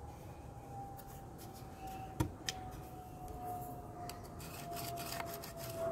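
Pencil scratching along a metal square as a cut line is marked on a wooden board, with a sharp knock about two seconds in and a smaller one just after. A faint steady hum, slowly sinking in pitch, runs underneath.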